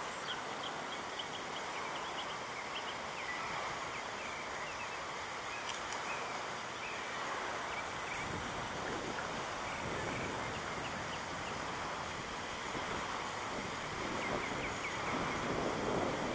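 Outdoor ambience: steady wind noise on the microphone, with scattered faint bird chirps.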